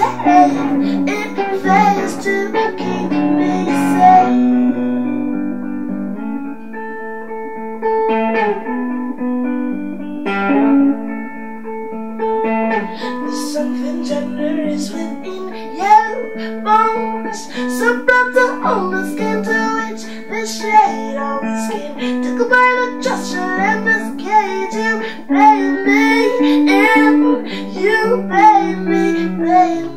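Red hollow-body electric guitar played through a small Roland Cube practice amp, with a woman singing over it for much of the time. It is picked up by the camera's built-in microphone.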